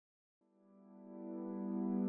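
Background music fading in from silence about half a second in: a sustained, steadily swelling chord with no beat.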